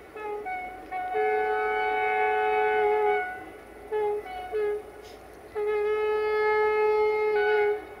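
Two-note air horn of the diesel locomotive 65-1300-6 ('Jimmy') played as a horn show: a few short toots, a long blast of about two seconds, two short toots, then another long blast.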